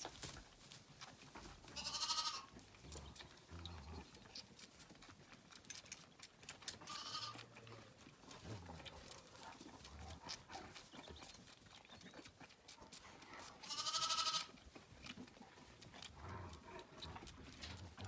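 Zwartbles lambs bleating: three short bleats, about 2 s, 7 s and 14 s in, the middle one faint and the last the loudest, with light rustling and clicks between the calls.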